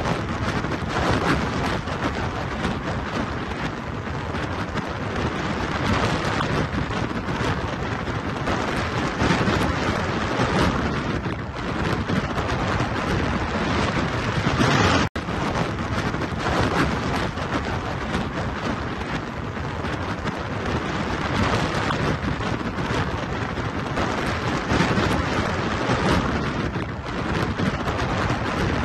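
Strong storm wind buffeting the microphone: a constant loud rushing noise with no let-up, broken only by a split-second dropout about halfway through.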